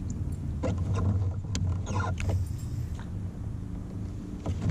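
A steady low motor hum, with a few short knocks and rustles over it.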